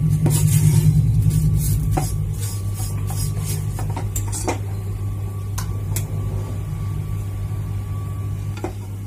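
Wooden spatula stirring and scraping grated dry coconut as it roasts in a non-stick pan, with scattered scrapes and light taps over a steady low hum.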